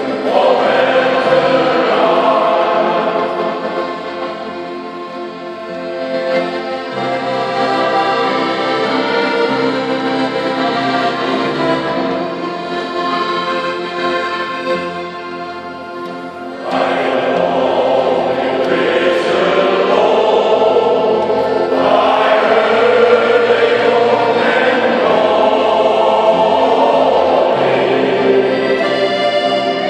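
A shanty choir singing with accordion accompaniment, swelling clearly louder a little past halfway.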